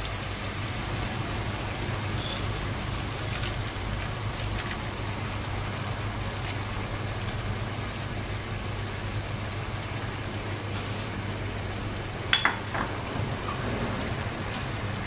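Pork belly frying in a pan of adobo sauce: a steady sizzling hiss over a low hum, with a sharp click about twelve seconds in.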